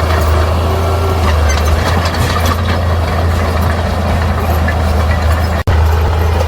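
Heavy diesel engine of earthmoving machinery running steadily with a deep low drone. The sound drops out for an instant about five and a half seconds in.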